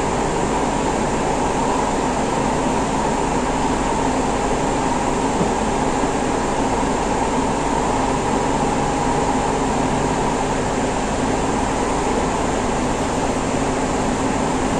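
Siemens C651 metro train running steadily through a tunnel, heard from inside a passenger car: an even rumble and hiss of wheels on rail and running gear, together with the car's air conditioning.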